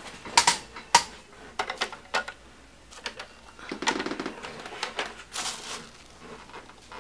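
Packaging and a plastic replica prop being handled: a handful of sharp clicks and knocks in the first couple of seconds, then scraping and rustling as it is lifted out of its styrofoam packing.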